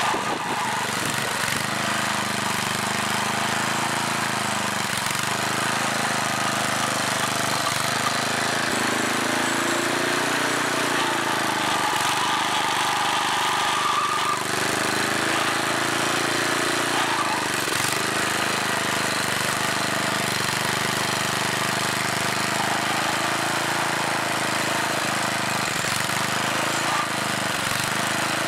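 The rototiller's 8-horsepower engine, swapped over from a snowblower, runs steadily while the tines dig into grassy ground. Its pitch sags and recovers several times as the load on the tines changes.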